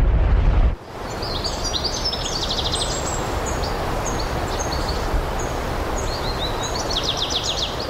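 Forest ambience: steady background noise with small birds calling high above it, including two runs of rapid trilled notes, one early and one near the end. A deep rumble cuts off suddenly under a second in.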